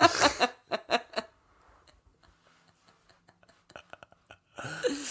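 Laughter trailing off in a few short bursts, then a pause of near quiet with faint clicks, and a breathy vocal sound near the end.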